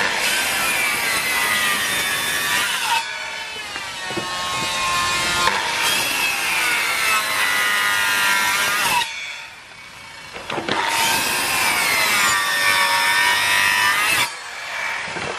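Handheld electric circular saw crosscutting a wooden board, its motor whine bending in pitch as the blade loads up in the wood. The cutting comes in three spells, with the saw easing off to a softer spin in between and nearly stopping about nine and a half seconds in.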